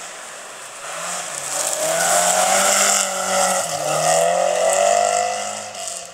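Volvo saloon rally car passing at full throttle on a gravel stage, its engine loud and high-revving, with gravel hissing and spraying from the tyres. The engine note dips briefly about three and a half seconds in, then climbs again. The sound cuts off suddenly at the end.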